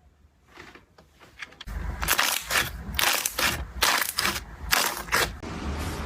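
Crunchy slime being squeezed and crushed by hand: a few soft clicks, then from about two seconds in a dense run of loud crackling crunches, settling into a steadier crackle near the end.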